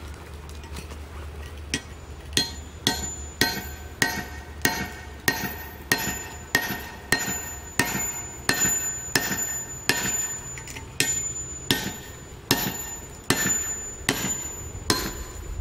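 Hammer striking the spine of a thin Elmax stainless steel knife about twice a second, starting about two seconds in, batoning the blade down through a concrete cinder block. Each blow lands with a sharp metallic clink that rings on briefly.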